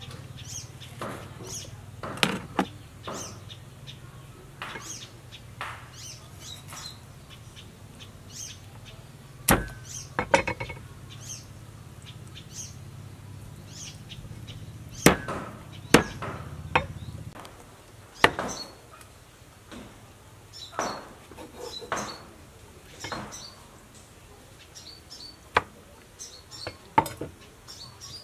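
Meat cleaver chopping raw quail on a thick wooden chopping block: irregular sharp chops with pauses between them, a few much louder than the rest.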